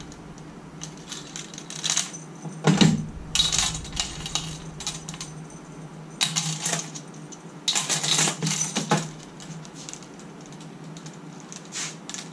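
Metal hand tools (wrenches and sockets) clinking and rattling in a toolbox drawer as a hand rummages through them, in irregular clusters of clicks with short pauses between.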